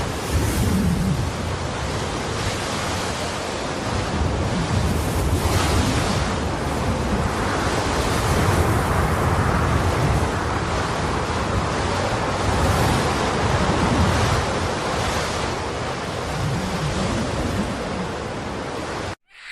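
Horror 'ghost' sound effect: a continuous rushing, wind-like noise over a deep rumble, swelling and easing slightly, that cuts off abruptly near the end.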